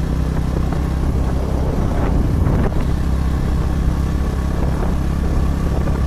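Motorcycle engine running steadily at cruising speed, a constant low hum with a steady rush of road and air noise over it.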